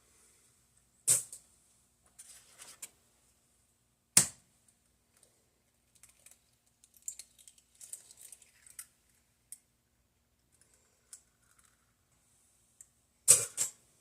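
Three eggs cracked one after another: three sharp knocks of shell on a hard edge, about a second in, about four seconds in and near the end, with faint shell crackling and small clicks between.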